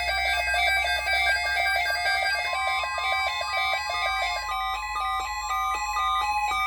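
Electronic music: a fast melody of short, stepped synth notes. A single held note joins about two and a half seconds in.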